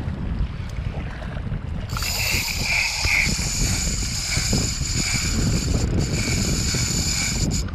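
Shimano spinning reel's drag screaming steadily as a hooked yellowtail kingfish pulls line off, starting about two seconds in. Wind buffets the microphone underneath, with waves lapping at the shore.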